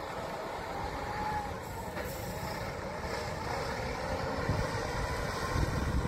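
Hokkaido Chuo Bus coach pulling away and turning, its diesel engine running with a low rumble and a faint whine that wavers up and down in pitch.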